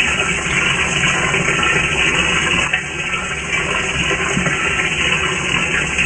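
Water pouring into a washing machine drum as it fills, a steady rushing splash heard from inside the drum, with a brief lull a little before halfway.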